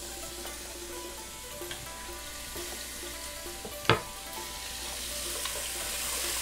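Lean ground pork and beef sizzling as it browns in oil in a pot, a steady frying hiss that grows a little louder near the end. A single sharp knock just before four seconds in.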